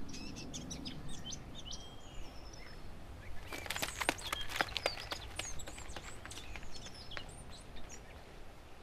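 Many small birds chirping and twittering in short calls and quick sliding whistles, over a steady low outdoor rumble.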